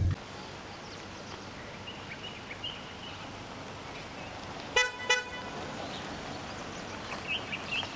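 Two short horn toots in quick succession about five seconds in, over a steady outdoor hiss with a few faint high chirps.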